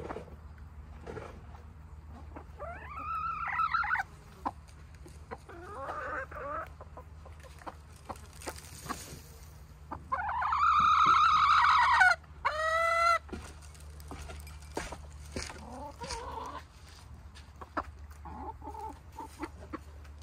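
Backyard hens clucking and calling, with one long, loud call about ten seconds in followed straight away by a shorter falling one.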